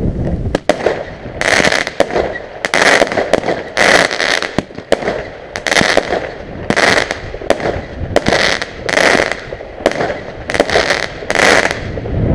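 Small consumer firework cake (a mini multi-shot launcher) firing its shots: a series of sharp bangs about one a second, starting about a second and a half in and running on to near the end, each bang trailing off in a short crackle.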